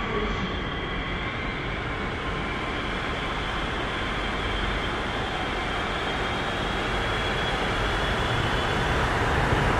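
Keio Line electric train running at the platform of an underground station: a continuous rumble with a steady high whine, the running noise growing louder toward the end.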